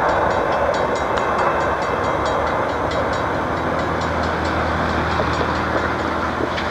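Intermodal freight train rolling away at speed, its wheels clicking over the rail joints in a quick regular rhythm as the rumble of the cars slowly fades with distance.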